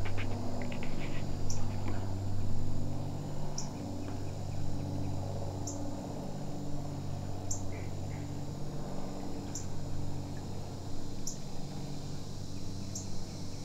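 Outdoor insect chirping: a short high chirp repeats about every two seconds over a low steady hum.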